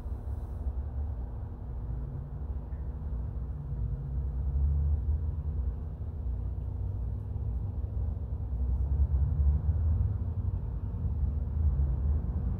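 Steady low background rumble with a faint constant hum, swelling and easing slowly; no distinct knocks or clinks of parts.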